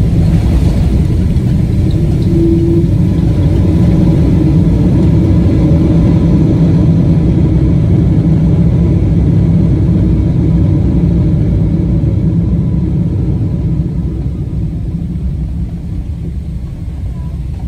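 Cabin noise inside a Boeing 777-200 rolling on the ground after landing: a loud, steady, deep rumble of engines and airflow, easing somewhat toward the end as the jet slows.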